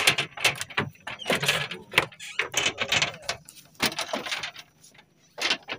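Irregular clattering and knocking on a wooden boat deck, a handful of short noisy bursts, from footsteps and fishing gear being handled while a hooked fish is landed.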